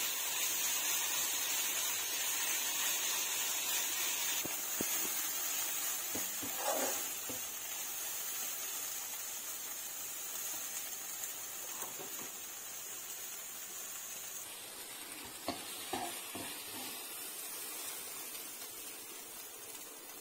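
Drumstick leaves and dried anchovies sizzling in a nonstick wok while a metal spatula stirs them, with scattered short scrapes and knocks of the spatula. The sizzle slowly grows quieter as the dish is cooked down until dry.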